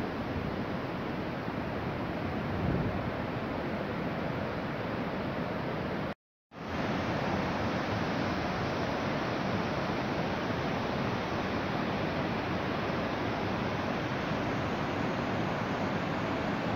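Steady rushing wind noise on an outdoor microphone, even and unbroken apart from a brief total dropout about six seconds in.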